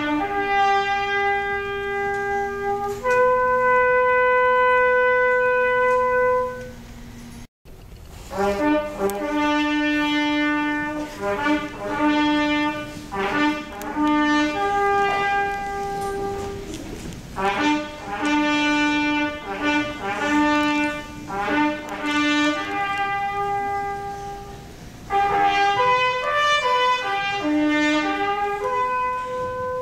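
Bugle playing a call in slow, long held notes, then, after a break about 7 s in, a quicker call of short repeated notes on a few fixed pitches, ending on long notes again.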